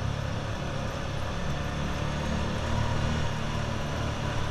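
ATV engine running steadily while the quad drives through a tunnel: a low, even drone.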